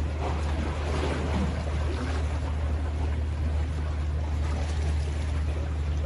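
Sea water washing and splashing against a rock breakwater as a hooked fish thrashes at the surface near the rocks, with a steady low rumble underneath.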